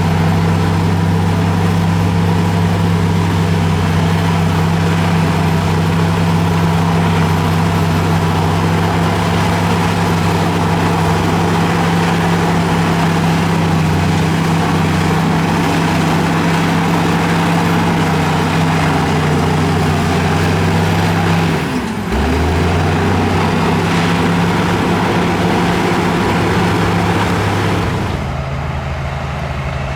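Heavy diesel engine of earthmoving machinery running steadily under work. About two-thirds of the way through it briefly dips and recovers, and near the end the sound turns quieter and duller.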